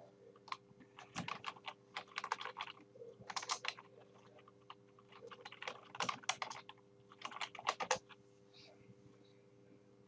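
Typing on a computer keyboard: several short bursts of keystrokes, stopping about two seconds before the end.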